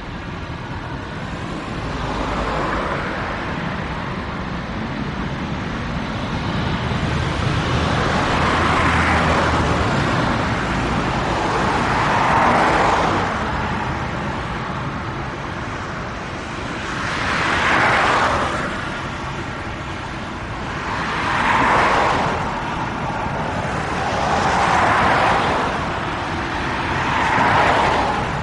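A Boeing 747-8F freighter's four GEnx engines running at taxi power, a steady jet rumble. Over it comes a run of louder swells, each rising and fading over a second or two, about every three to four seconds in the second half.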